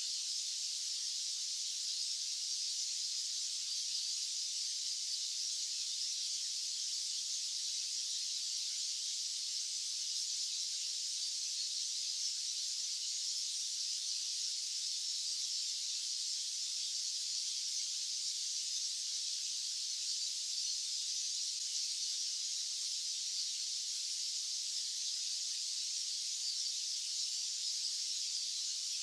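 Steady, high-pitched white noise hiss, unchanging, with its energy in the treble and no low end at all.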